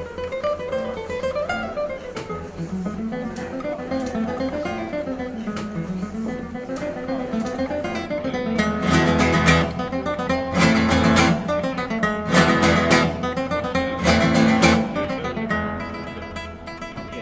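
Acoustic guitar playing: a picked melodic line, then a run of loud strummed chords through the second half.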